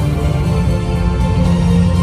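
Music with a heavy, steady bass.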